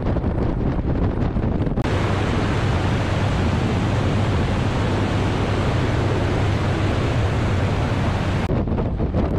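Open biplane in flight: wind rushing hard over the microphone, with the radial engine and propeller droning steadily underneath. The sound changes abruptly about two seconds in, becoming a fuller, brighter rush with a stronger low drone, then switches back near the end.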